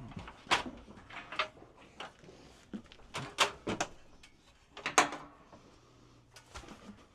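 A series of about eight separate clanks and bangs as a ladder and tools are loaded into a work van, the loudest about five seconds in.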